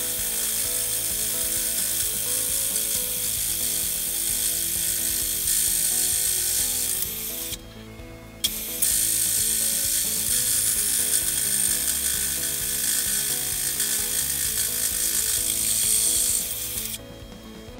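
Coarse-toothed hole saw in a milling machine cutting thin aluminum tube with a tightly fitted wooden slug inside, a steady rasping chatter. The cut stops for about a second partway through, as the waste is cleared so it doesn't clog the saw, then resumes and stops again shortly before the end.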